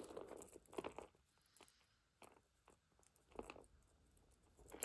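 Near silence with a few faint clicks and rustles as a beaded gunmetal chain necklace is handled on a mat.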